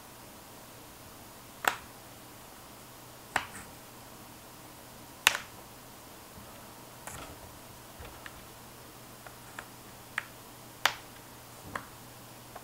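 Sharp snaps and clicks, about ten at uneven intervals, as a plastic spudger pries the glass panel of an ASUS Transformer Prime tablet away from its frame: the adhesive holding the glass separating.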